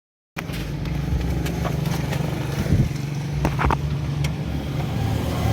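Multicab's 12-valve engine running steadily.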